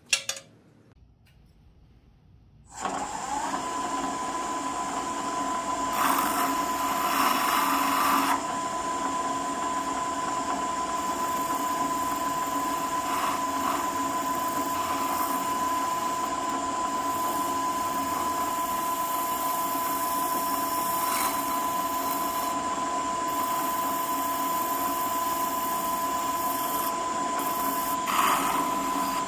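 A sharp knock, then a benchtop drill press switches on about three seconds in, runs up and settles into a steady whine as it spins a small abrasive disc. A louder rasping stretch follows a few seconds later, with shorter ones later on, as a steel hand-plane part is pressed against the disc.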